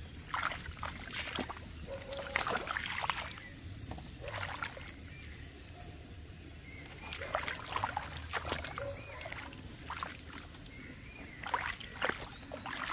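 Bare feet sloshing and splashing through shallow water in a flooded, muddy furrow, in irregular steps about every second or two. Birds chirp briefly in the background over a faint steady high whine.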